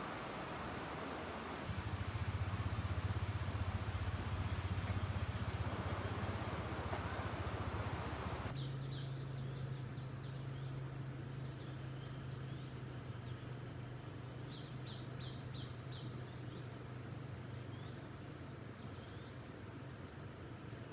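Insects trilling steadily in a high, continuous tone, with a low hum underneath in the first part. About eight seconds in, the sound cuts abruptly to a similar insect chorus with brief gaps and a few short chirps.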